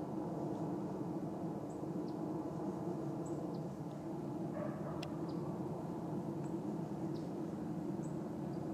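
Steady, distant rumble of a McDonnell Douglas MD-83 airliner's Pratt & Whitney JT8D turbofan engines passing overhead at altitude, with short high bird chirps repeating every second or so and a single click about five seconds in.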